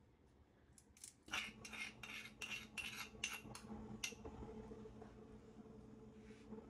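A spoon scraping ground garlic out of a stone molcajete into a glass bowl: about ten quick scraping, clinking strokes, roughly three a second, starting about a second in and stopping near the middle.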